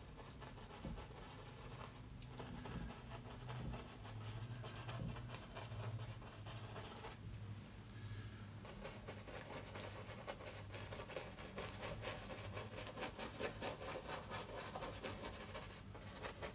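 Small hog's hair brush scrubbing lightly on a gesso-primed canvas as oil paint is blended: a run of faint, quick, scratchy strokes that let up briefly a little past the middle. A low steady hum sits underneath.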